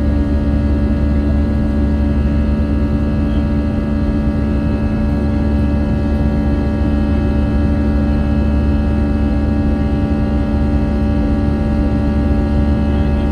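Airbus A320 jet engines and airflow heard inside the passenger cabin in flight: a loud, steady drone with a low rumble and several steady tones.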